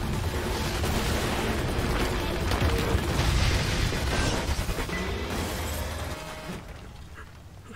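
Anime soundtrack: a long, loud explosion sound effect under background music, dying away about six and a half seconds in.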